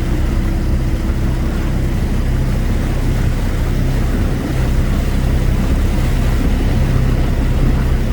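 An engine running steadily at constant speed, a low even drone.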